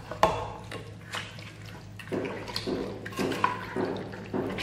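Raw chicken pieces being mixed with thick ground masala paste in a stainless steel pot: irregular wet squelching and sloshing strokes, with a spoon knocking and scraping against the steel.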